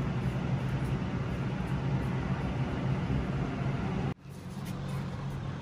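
Steady low background rumble and hum, with no distinct events; it cuts off abruptly about four seconds in and returns a little quieter.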